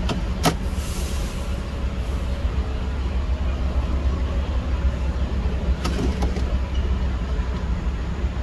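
Ford E-150 van's engine idling steadily in neutral, heard from inside the van. Sharp clicks come twice about half a second in and again around six seconds in.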